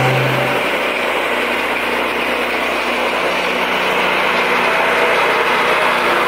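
Small engine of a portable sawmill running steadily at a constant speed.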